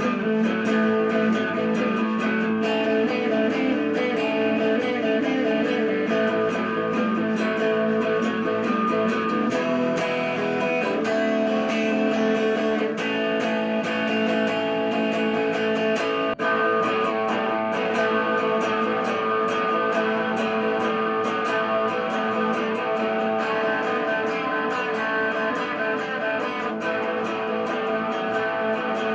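Gibson Les Paul Special electric guitar with a Bigsby B7 vibrato, played without a break through a Marshall Master Lead 30 amp set flat.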